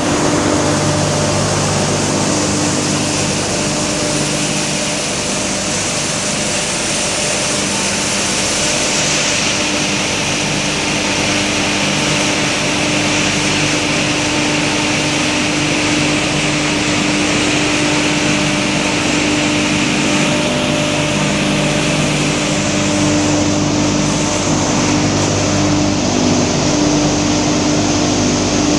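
Hammer mill wood crusher running steadily: a loud, continuous machine drone with a steady hum under a dense hiss.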